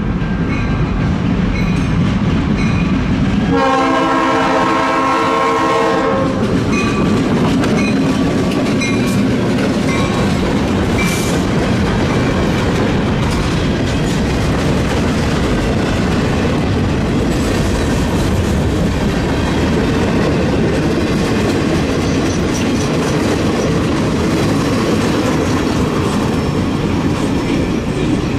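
Diesel road-switcher locomotive GTW 5832 running through a grade crossing. About three and a half seconds in it sounds one chord-like horn blast of about two and a half seconds over the crossing bell's steady ringing. Then the freight cars roll past with a heavy rumble and wheel clatter over the rail joints.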